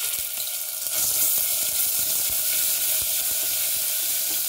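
Hot oil sizzling in a steel pressure cooker as ginger-chilli paste, garlic paste, cumin and mustard seeds fry in it: a tempering. The sizzling grows a little louder about a second in.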